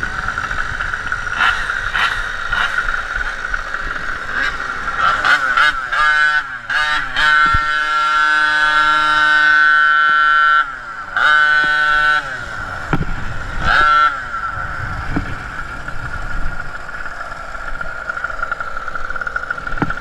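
Gas Goped scooter's small two-stroke engine running, revved in a string of throttle blips about five to fourteen seconds in, one held high for a couple of seconds, the pitch sliding back down after each; otherwise it runs at low revs with a steady whine.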